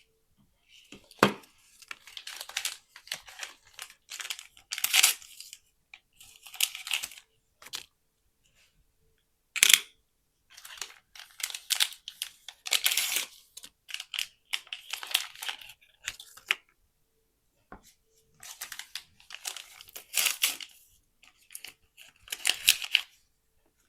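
Plastic wrapping being torn open and crinkled by hand, in irregular bursts of rustling with a few sharp clicks and short pauses, as small Mini Brands packets and capsules are unwrapped.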